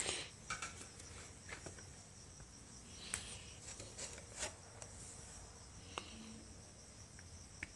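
Faint scattered clicks, taps and short rustles of a plastic oil funnel and oil bottle being handled at a motorcycle's oil filler, over a low steady background.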